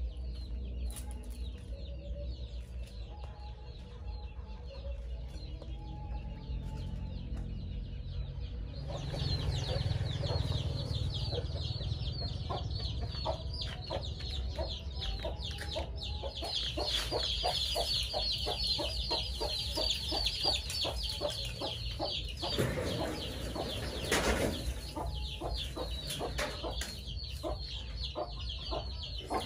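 Chickens clucking, joined about nine seconds in by a dense, continuous chatter of short high-pitched chirps.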